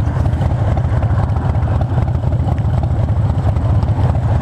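Harley-Davidson V-twin motorcycle engine running steadily while riding, a low, even pulsing exhaust note with no change in revs.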